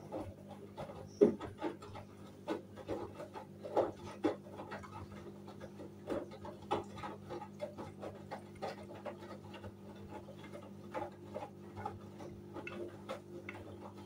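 Hoover front-loading washing machine drum tumbling a load of laundry in soapy water: irregular splashes and soft thuds as the wet clothes drop, over a steady motor hum. The sharpest knock comes about a second in.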